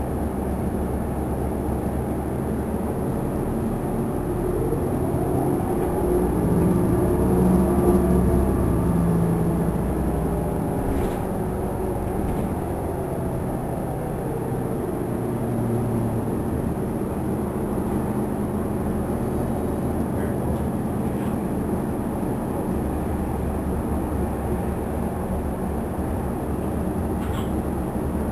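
Interior of a 2009 New Flyer DE40LF diesel-electric hybrid bus under way: its Cummins ISL diesel engine and Allison EP40 hybrid drive running steadily, growing louder with a rising whine as the bus picks up speed about five to nine seconds in, then settling back to a steady drone.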